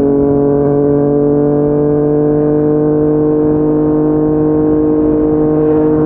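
Yamaha MT-09's inline three-cylinder engine through a Yoshimura R55 slip-on exhaust, pulling steadily in one gear, its pitch rising slowly as the bike gains speed.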